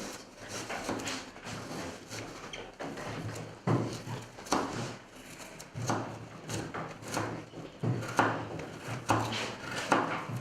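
Irregular wooden knocks and clatter of knives on cutting boards as fruit is cut up, about one knock a second in the second half.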